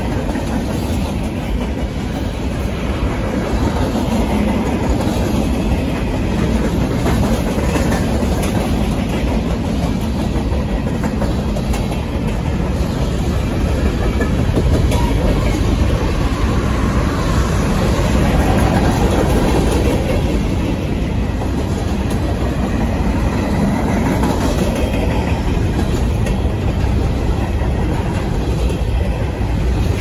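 Freight cars rolling past close by: a steady rumble of steel wheels on rail, with the clickety-clack of wheelsets passing over the track.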